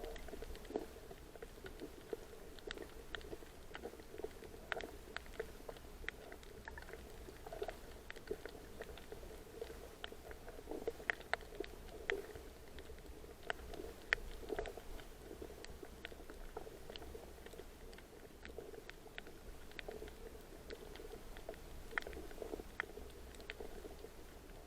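Twoband anemonefish making irregular short pops and clicks underwater, scattered unevenly, over a steady low underwater rumble.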